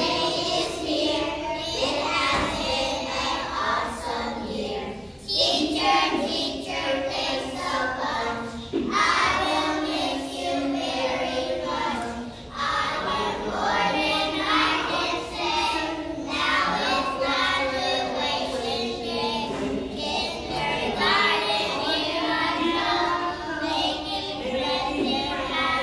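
A group of young children singing a song together, line after line, with short breaks between phrases.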